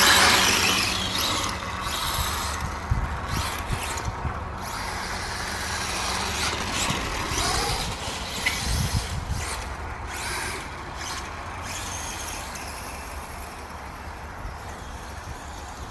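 A BSD Racing 404T 1/4-scale brushless electric RC dirt bike being driven, its motor whirring and its tyres rolling over the ground at a gentle throttle. The sound rises and falls unevenly, loudest right at the start.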